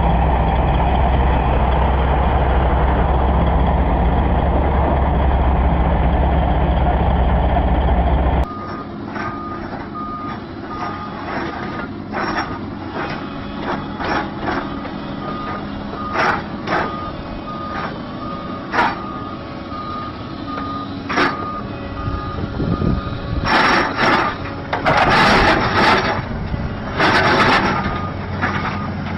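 A heavy machine's engine runs hard under throttle for the first eight seconds or so. After an abrupt cut, a reversing alarm beeps at an even pace, with scattered knocks and clanks and a few loud noisy bursts near the end.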